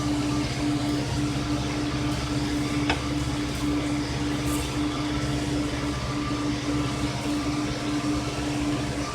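Electric blower feeding air into a coal forge, running steadily with a constant motor hum over a rush of air. A single light click comes about three seconds in.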